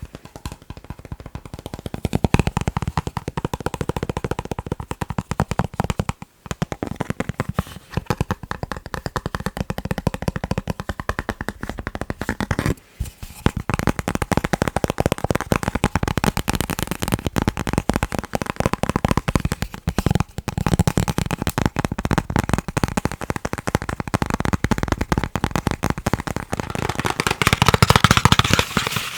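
Fast, continuous fingertip tapping on chocolate, a dense run of sharp little clicks that pauses briefly twice and turns crisper near the end.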